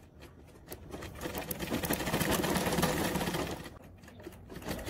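Domestic sewing machine stitching piping onto an apron: a rapid run of needle strokes starts about a second in, pauses briefly near the end, then starts again.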